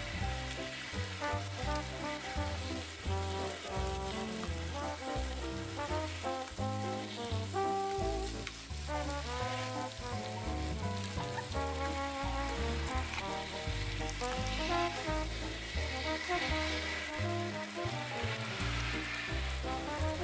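Pork belly slices, sausages and vegetables sizzling and frying in a non-stick pan, a steady hiss, under background music with a melody and a pulsing bass line.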